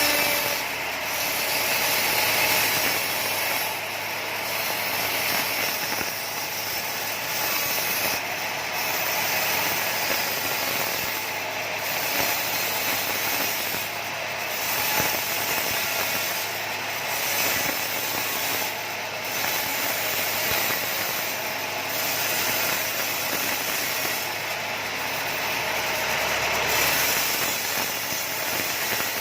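Band saw mill running and sawing through a log, a steady hissing, grinding machine noise whose high hiss briefly thins every few seconds.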